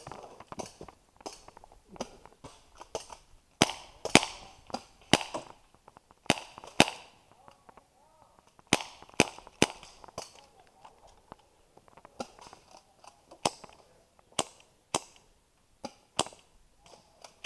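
Airsoft guns firing in scattered sharp cracks, some in quick pairs or short runs, irregularly spaced, with the loudest cluster about four seconds in.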